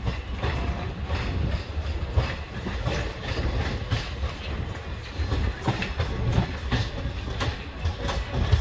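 Passenger train coaches running at speed, heard from the moving coach: a steady low rumble with the wheels clicking irregularly over the rail joints, several clicks a second.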